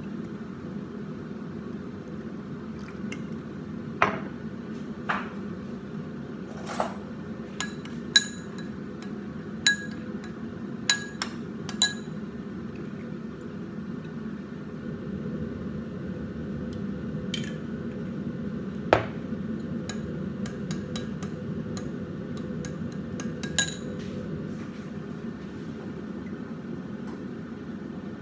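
Utensils clinking against glass dishes, about a dozen sharp ringing clinks, most in the first half and a few more later, over a steady low hum.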